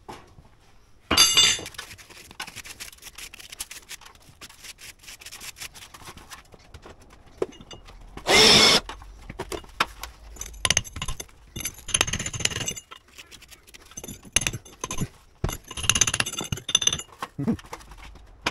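Intermittent scraping and scratching of a hand tool on brick and mortar, as loose mortar is cleared from a hole in brickwork. Two short, louder scrapes come about a second in and about eight seconds in.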